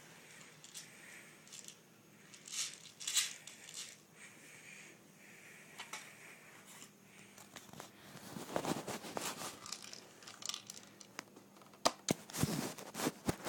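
Handling noise: rustling and crinkling in several bouts, with a few sharp clicks near the end.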